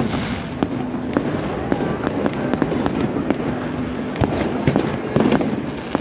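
New Year fireworks going off overhead: a rapid, irregular run of bangs and crackles from bursting shells over a continuous haze of crackle, with a cluster of louder bangs near the end.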